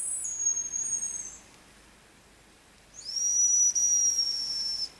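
Hazel grouse whistle decoy blown twice: two long, thin, very high whistles, the first about a second and a half long, the second about two seconds, steady and falling slightly in pitch at the end.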